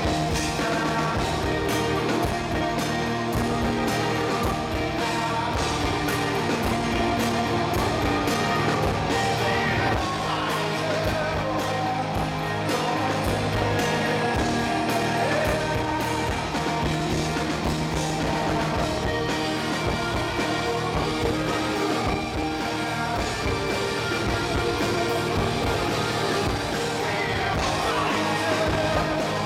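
Rock band playing live: a male lead vocal sung over electric guitar and drums with a steady beat.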